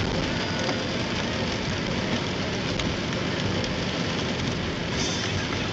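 Rain falling steadily on a car's roof and windshield, heard from inside the cabin while driving, with the hiss of tyres on the wet road.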